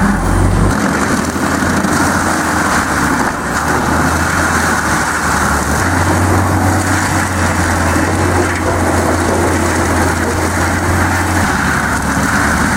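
A heavy wood-processing machine running steadily, its engine hum shifting in strength as it works, under a continuous rough grinding and cutting noise of wood.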